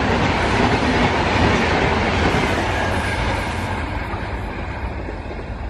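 Red passenger coaches of a train running past at speed, with loud wheel-on-rail noise that fades from about three and a half seconds in as the last coach pulls away.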